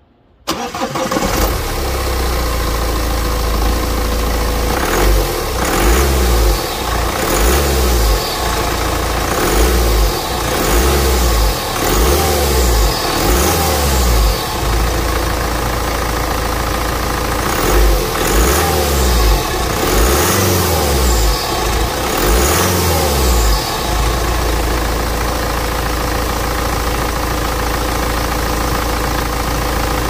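BMW four-cylinder diesel engine starting about half a second in. It then runs with its revs rising and falling repeatedly, and settles into a steady idle with diesel clatter over the last few seconds. Its drive belt has just been sprayed with WD-40 to cure a cold-weather squeal.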